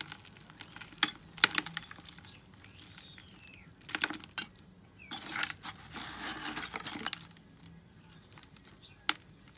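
Small scraps of sheet metal and grinding debris clinking and rattling in a plastic bucket as a hand sifts through them, with irregular sharp clinks and a few longer stretches of scraping and shuffling.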